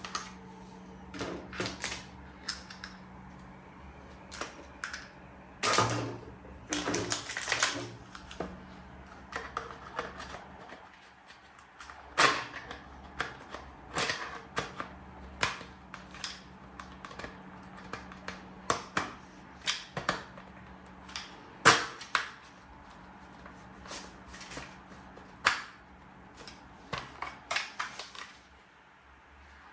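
Hard plastic toy parts being handled and clicked together: irregular sharp clicks and taps, with a short spell of rattling about six to eight seconds in.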